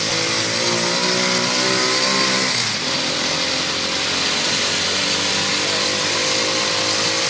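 Small motorcycle engine of a three-wheeled mototaxi running under way, a steady buzz over wind and road noise. The engine note drops and changes about three seconds in, then settles again.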